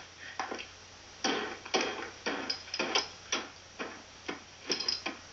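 Short clinks and scrapes of parts being fitted as a television set is put back together, about two a second, played back through a laptop speaker.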